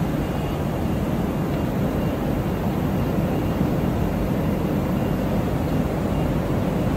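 Steady factory background hum: an even rushing noise with no rhythm and no distinct events.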